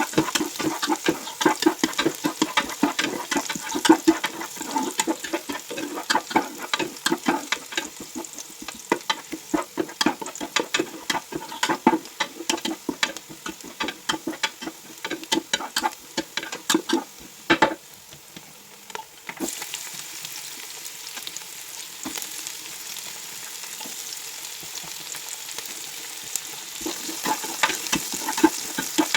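Fried rice being stir-fried: a spatula scraping and tapping against the pan in quick, uneven strokes over a steady sizzle. The stirring stops a little past halfway, leaving only the sizzle for about ten seconds, then starts again near the end.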